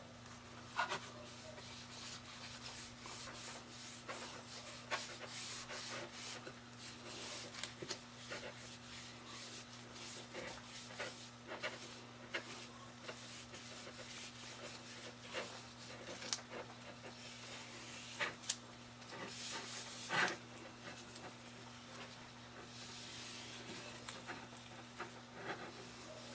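A cloth rubbing lacquer onto a small carved wooden bat: soft, irregular wiping strokes with scattered light taps and clicks as the wood is handled. A faint steady electrical hum sits underneath.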